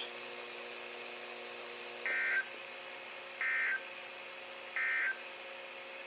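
NOAA Weather Radio's SAME end-of-message signal: three short, identical bursts of warbling data tones, about a second and a half apart, over a faint steady hum.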